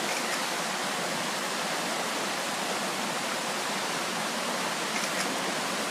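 Steady, even rush of fast-running river water, the Ishikari River's rapids through the Kamuikotan gorge.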